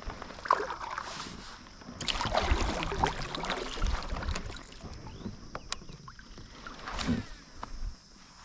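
Water splashing and sloshing around a plastic fishing kayak, loudest a couple of seconds in, with a few sharp knocks near the end.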